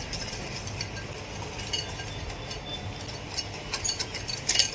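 Wire whisk beating a wet egg mixture in a glass bowl, the wires clinking against the glass in quick, irregular ticks that grow busier near the end.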